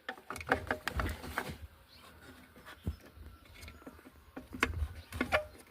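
Scattered small clicks and rattles of taillight bulbs and plastic bulb sockets being handled as the bulbs are pushed back into the sockets, busiest in the first second and a half and again near the end.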